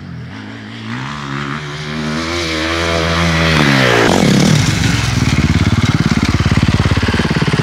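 Motocross bike approaching on the throttle, its engine note rising in pitch and getting louder. About four seconds in the throttle is chopped for a late-braking turn entry and the pitch drops sharply. It then runs on at low revs with a rapid, even pulsing.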